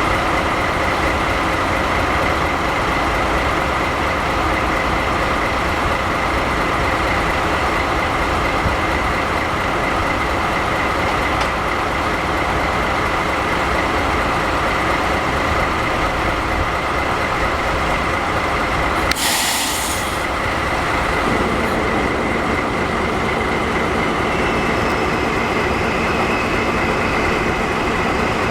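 Train running on rails, hauling new Seibu 30000-series cars: steady rolling and running noise with a constant whine, a short high-pitched burst about nineteen seconds in, and a change in the lower tones a couple of seconds later.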